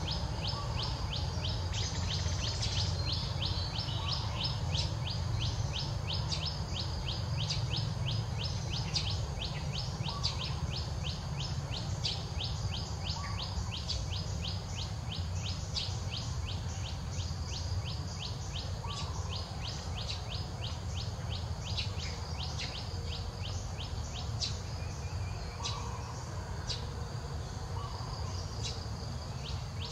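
Outdoor ambience: high, short chirps from small wildlife repeating about three times a second over a steady low rumble.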